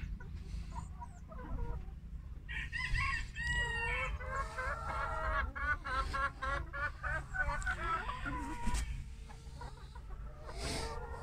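Brown hybrid laying hens clucking and calling, with a quick regular run of short clucks in the middle.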